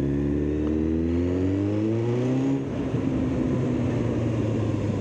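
Kawasaki ZX9R's inline-four engine through an aftermarket Akrapovič exhaust, accelerating with a rising note. About two and a half seconds in, the pitch drops and the engine runs on at a lower, steadier note.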